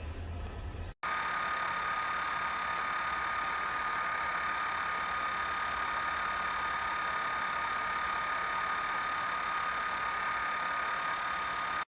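Cooling fan of a BESTEK 150W car power inverter running: a steady whirring hiss with a high whine held on one pitch, which the owner calls super loud. It starts abruptly about a second in, after a short low rumble.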